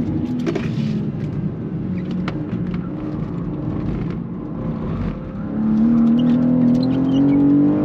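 BMW G87 M2's twin-turbo straight-six heard from inside the cabin: off the throttle through a corner, lower and uneven with a few short sharp cracks, then pulling hard again from about five seconds in, its pitch climbing steadily.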